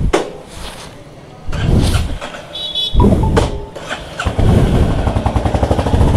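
Royal Enfield Bullet 350 single-cylinder engine being started, catching about three seconds in, then idling with a steady beat.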